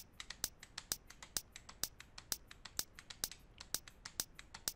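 Short, sharp snare hits built from recorded handclaps, repeating in a steady loop of about two strong hits a second with softer ones between, heard through a high-pass filter that thins out their low end.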